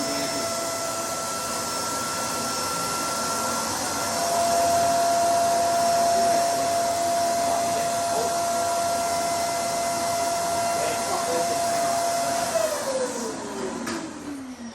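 An electric motor in a shop tool or machine runs with a steady whine and hiss, then is switched off about two seconds before the end and winds down, its pitch falling.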